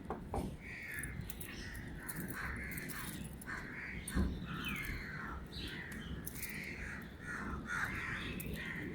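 Birds calling over and over, short rough calls a couple of times a second.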